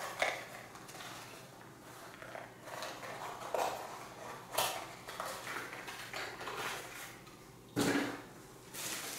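Plastic and cardboard packaging rustling and crinkling in short spells as vacuum accessories are unwrapped by hand, with one louder sudden noise near the end.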